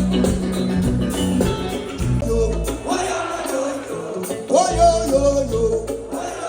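Live band playing reggae: steady bass and guitar, with a singer's voice carrying sung lines from about halfway through.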